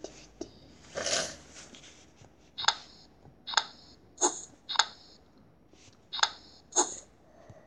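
Game sound effects from a tablet memory-match game: six short, bright clicks as wooden-look tiles are flipped over, mostly in pairs. There is a brief whoosh about a second in as the game board opens.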